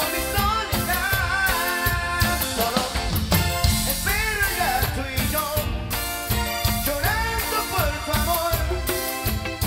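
Live grupero band playing a song: drum kit keeping a steady beat under electric guitar and bass, with a wavering melody line on top.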